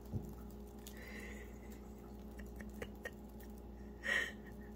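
Potaroma 3-in-1 hide-and-seek butterfly cat toy running: a faint steady motor hum with scattered soft clicks as its feather wand circles under the fabric mat. A brief soft rustle about four seconds in.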